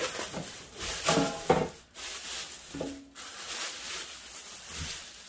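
Plastic wrapping crinkling and rustling in uneven bursts as it is pulled off a stainless steel hot pot.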